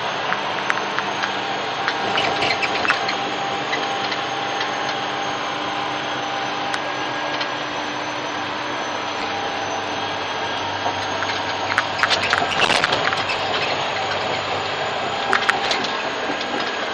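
Caterpillar D10T bulldozer's diesel engine and drivetrain heard from inside the cab: a steady running drone with a high whine over it. Brief clattering about twelve seconds in and again about fifteen seconds in.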